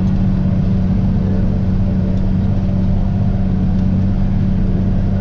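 Tractor engine and pull-type forage harvester running steadily under load while chopping standing corn: a loud, even engine drone with the harvester's machinery underneath.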